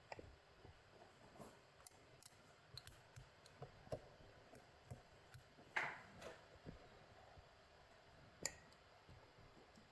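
Faint, scattered clicks and light scrapes of a lock pick and tension tool working the wafers and sliders inside a Tostem WN lock, with two louder clicks, one about six seconds in and one near the end.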